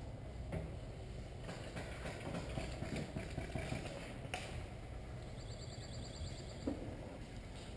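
Footsteps of a player moving through woods, heard through a body-mounted action camera with its steady handling rumble, and a short high rapid trill about five seconds in.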